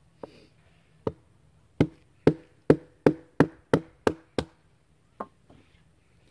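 Small hatchet chopping a piece of firewood into kindling: about a dozen sharp woody knocks, with a quick run of eight blows in the middle at roughly three a second.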